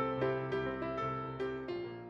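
Gentle piano music, a slow melody of single struck notes, fading out toward the end.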